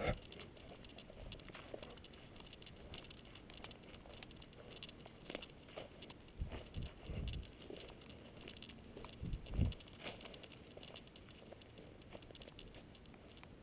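Faint footsteps of a hiker walking along a trail: irregular light crunching and scratching, with a few soft thumps around the middle.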